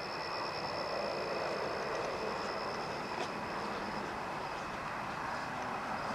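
Steady background noise with a faint, thin, high steady whine that fades after about four seconds.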